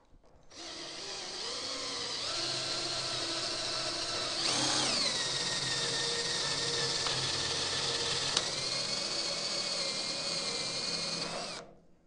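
Craftsman cordless drill turning a reamer through a VW Beetle door hinge's pin bore, opening it up for oversize hinge pins. The motor whine starts about half a second in and runs steadily. About four seconds in its pitch jumps sharply and falls back, then it settles and runs on with a small click and pitch step, and it stops just before the end.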